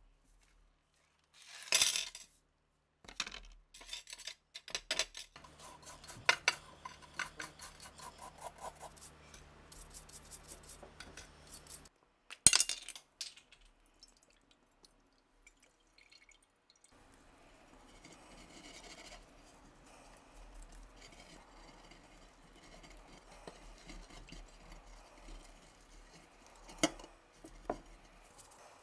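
Liquid poured into a glass baking dish, with sharp clinks of metal pistol parts and bottles against the glass. A run of quick ticks fills the first half, and the loudest clink comes about halfway through.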